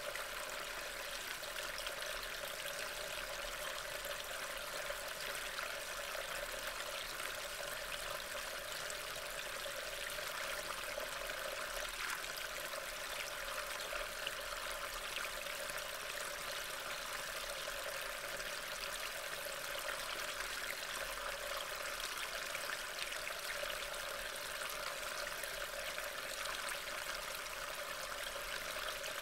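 Steady rain falling, a continuous even hiss with fine patter, picked up by a trail camera's built-in microphone.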